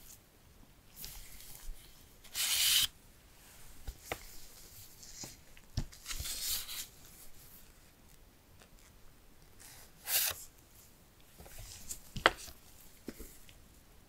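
Paper card inserts from a phone box being handled: several short swishes of card sliding and rubbing against card, the loudest a couple of seconds in, with a few small sharp taps in between.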